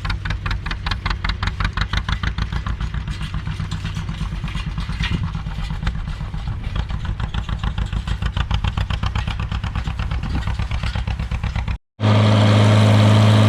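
Farmall 706 tractor engine running as the tractor travels, with a fast, even pulsing. Near the end the sound cuts briefly and comes back as a louder, steady engine drone.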